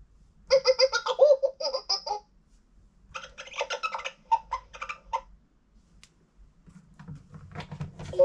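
LeapFrog 100 Animals Book playing a recorded animal call through its small speaker: two bursts of rapid, laughing chatter, each about two seconds long, with a low rumble near the end.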